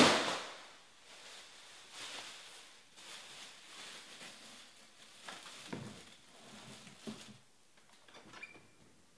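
Rustling and handling noises: one loud rustle at the start, then fainter scattered rustles, quieter near the end.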